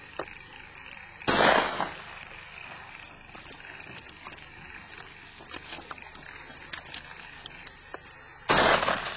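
Two shotgun shots, one about a second in and the other near the end, each a loud blast that trails off over about half a second.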